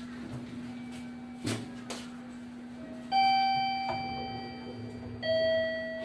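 Toshiba elevator's arrival chime: two bell-like tones, the second lower than the first, about two seconds apart, each ringing and fading out. A steady low hum runs underneath.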